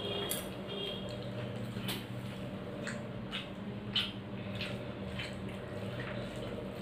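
Wet eating sounds: fingers mixing and squishing rice on a plate and mouth chewing, heard as a string of short soft clicks and smacks, roughly one every half second to second, over a steady low hum.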